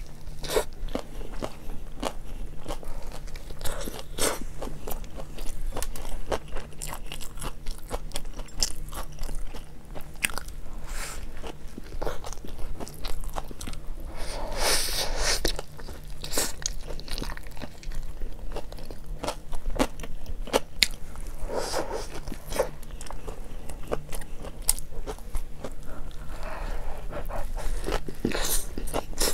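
Close-miked biting and chewing of a topped Italian hot dog: a steady run of sharp little clicks as the bun and sausage are bitten and chewed, with a few louder bites.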